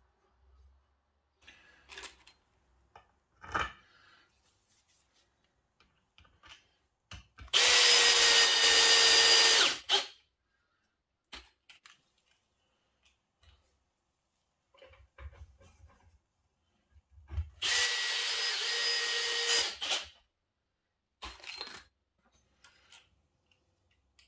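Cordless Makita drill running twice at steady speed, each run about two and a half seconds, working into a pine frame. Small wooden knocks and handling clicks come between the runs.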